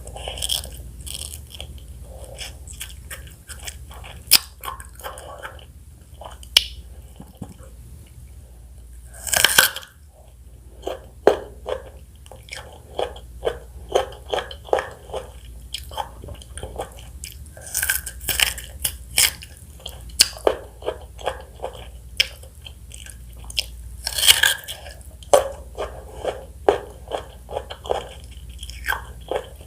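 Close-miked biting and chewing of fresh fruit (strawberry, mango and pineapple): runs of crisp, wet crunching clicks with short pauses between, and three louder bites, about a third of the way in, just past halfway and about four-fifths of the way through.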